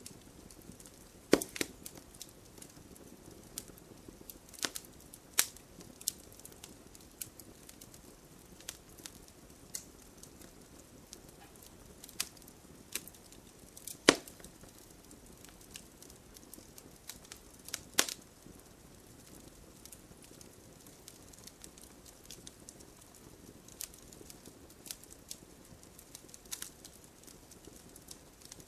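Campfire crackling: irregular sharp pops and snaps from the burning wood over a soft, steady hiss of the flames, with a few louder pops about a second and a half in, around the middle and a few seconds after.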